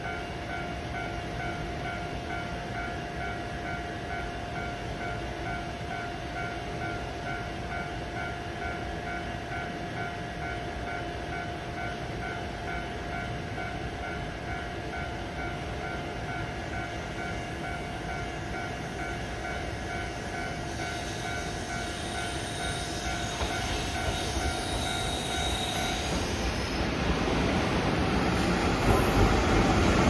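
An EF64 electric locomotive hauling a train draws into the platform, its wheel and motor rumble growing steadily louder over the last several seconds. Before that, a steady electronic tone with a pulsing pattern sounds, and it stops about 26 seconds in.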